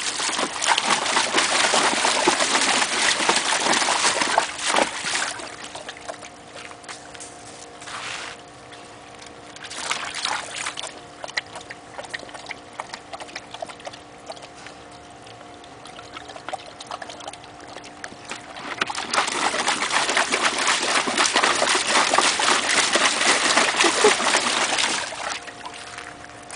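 Water splashing and sloshing in a plastic wading pool as a dog stands and moves about in it. The splashing is loud for the first five seconds and again for about six seconds near the end, with a few short splashes between.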